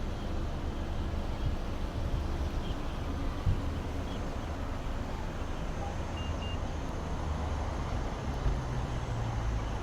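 Steady outdoor background noise with a deep rumble underneath.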